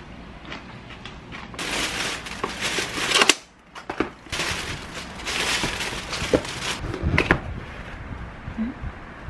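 Thin plastic carrier bag rustling and crinkling in long bursts as it is handled, with a few sharp knocks of takeout boxes being set down and opened near the end.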